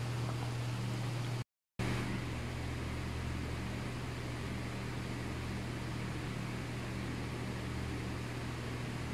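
Steady low hum and hiss of a running kitchen fan, cut off briefly about one and a half seconds in.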